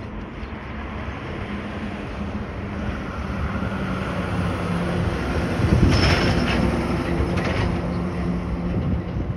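A motor vehicle's engine running with a low hum, getting louder toward a peak about six seconds in, with a short hiss at the loudest point.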